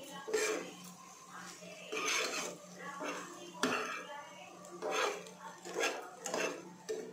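Steel slotted spoon scraping and knocking against a non-stick frying pan as fried idli pieces are tossed, in irregular strokes about once a second. A steady low hum runs underneath.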